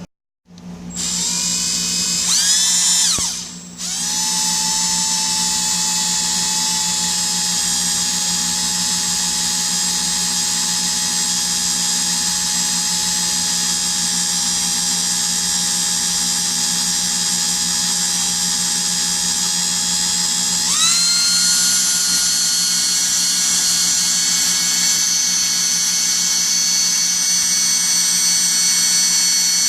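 Electric drill drilling out the steel rivets on a Hallicrafters S-38B radio chassis. The motor spins up with a rising whine, stops briefly about three seconds in, then runs steadily with a high whine that jumps higher in pitch about two-thirds of the way through as the drill speeds up.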